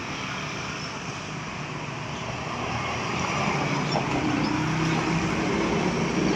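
Roadside traffic noise, with a vehicle's engine getting steadily louder as it approaches over the last few seconds.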